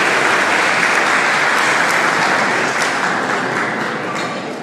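Guests applauding, dense and steady, then dying away over the last second or so.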